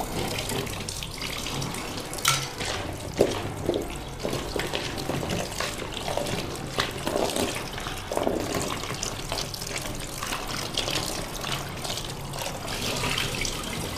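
Kitchen tap running into a plastic basin in a metal sink while peeled bamboo shoots are washed in it, water splashing steadily. A few light knocks come from the basin and shoots being handled.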